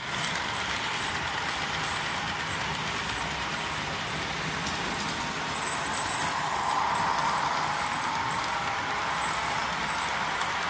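Märklin model trains running on their track: a steady mechanical running noise of wheels and motors. It swells briefly about six to seven and a half seconds in.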